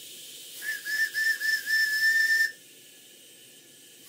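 A model steam locomotive's steam whistle blown in a few short toots that run into a held blast, then cut off sharply, with steam hissing before and after. The owner finds its whistle valve very leaky.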